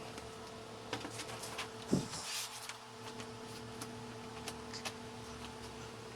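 Parts of an opened LCD TV being handled for reassembly: a few scattered light clicks and knocks, the loudest about two seconds in, over a steady low hum.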